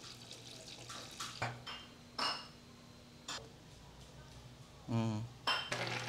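Light knocks and clinks of containers and utensils being handled: a handful of separate taps over the first few seconds. A brief voice sound comes about five seconds in.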